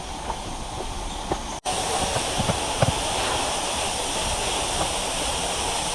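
Rushing water of a rocky stream, a steady rush. About a second and a half in it cuts out for an instant and comes back louder and brighter, with a few short knocks.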